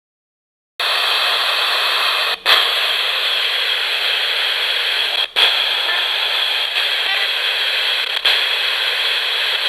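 Ghost box radio sweeping between two stations with no antenna, giving a steady loud white-noise static hiss that starts about a second in. The hiss drops out briefly twice, about three seconds apart, as the sweep jumps.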